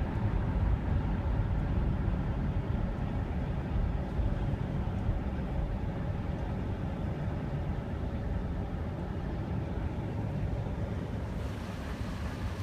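Car driving along a road: a steady low rumble of road and engine noise.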